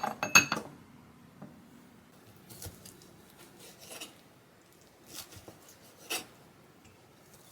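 Kitchenware being handled: a quick clatter of several clicks and taps at the start, then a few soft scattered taps and scrapes.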